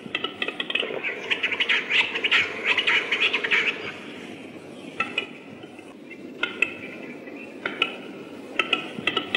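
Fennec fox chewing a carrot, with several sharp crunches in the second half. Rapid high chirping chatter fills the first four seconds.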